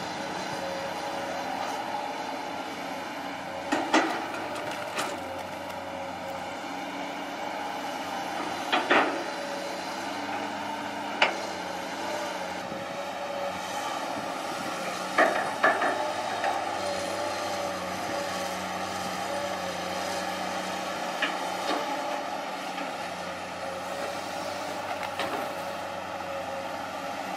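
Long-reach excavator's diesel engine running steadily under hydraulic work, with several sharp metallic clanks scattered through, the loudest pairs about 4, 9 and 15 seconds in.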